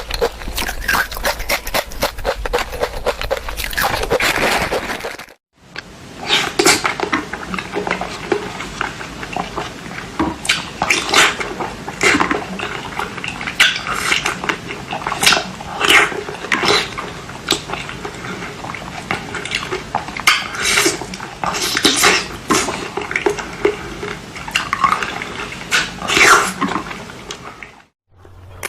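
Close-up eating sounds of sweets being chewed, with a string of sharp, crisp crunches every half second or so; the sound cuts out briefly about five seconds in and again near the end.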